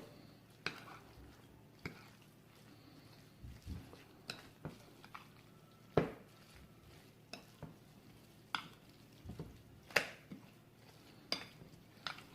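Spoon stirring a thick pepper-and-spice paste in a bowl, knocking and clinking against its sides with scattered taps at irregular intervals.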